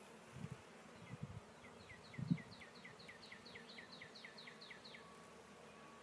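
Honeybees buzzing close past the microphone in three brief passes, the loudest about two seconds in. Behind them a rapid run of high repeated chirps, about four a second, from about one and a half to five seconds in.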